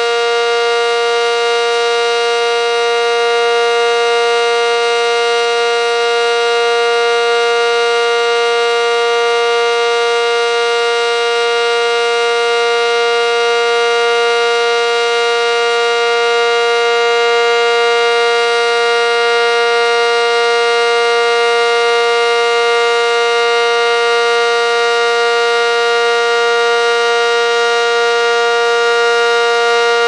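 ACA Cyclone outdoor warning siren sounding a loud, steady tone that holds one pitch without winding up or down.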